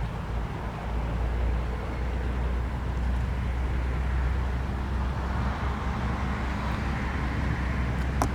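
Steady low rumble of a running motor vehicle engine, with a light hiss over it and a short click near the end.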